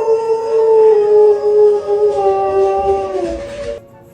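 Dog howling: one long, held note that sinks slightly in pitch and stops about three and a half seconds in.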